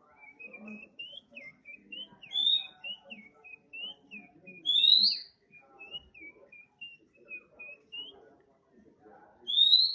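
Oriental magpie-robin (kacer) singing: a soft, continuous run of short twittering notes broken by three loud rising whistles, the "nembak" shots, about two and a half seconds in, at five seconds and near the end.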